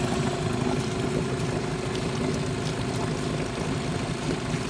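Mariner 8 hp two-stroke long-shaft outboard idling steadily on a test stand, its leg in a water-filled tub, with an even, rapid exhaust beat.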